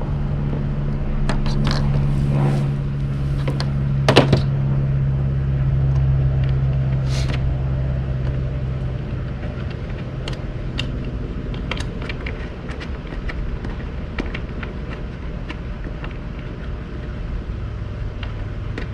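Scattered clicks, taps and knocks of camp-sink and table parts being handled and fitted together, the sharpest about four seconds in. Underneath runs a steady low hum that drops away after about nine seconds.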